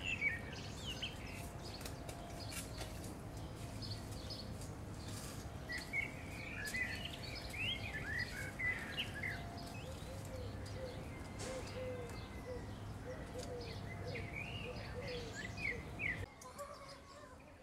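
Small birds chirping in quick rising and falling notes, in bouts near the start, from about six to nine seconds in, and again near the end, over a steady low hum.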